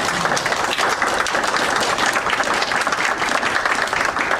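A congregation applauding: many hands clapping steadily together.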